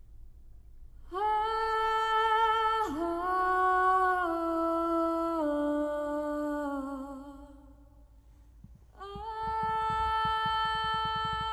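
A female vocalist sings long held notes, played back through a Pioneer carrozzeria DEH-970 head unit and the Toyota Prius α's stock speakers and heard inside the car cabin. One phrase steps down in pitch and fades, then after a short gap a new held note comes in over a quick, low, rhythmic accompaniment.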